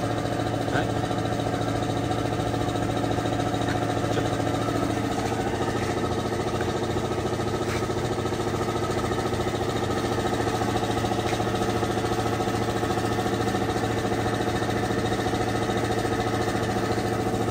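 Steady drone of an engine or motor running at a constant speed, with a few faint metallic clicks of hand tools on an engine being reassembled.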